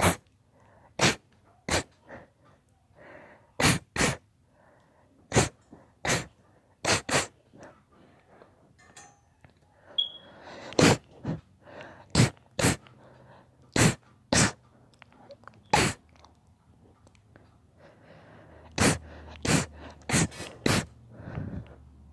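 A girl sneezing over and over, about twenty loud, sharp sneezes, several of them coming in quick pairs.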